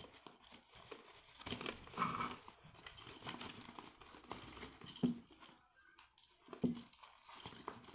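Irregular rustling and light clicks and knocks of hands rummaging among fishing lures to pick one out.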